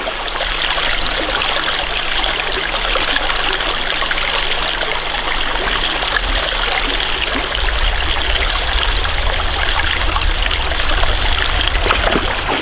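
Small forest creek running: a steady rush of flowing water.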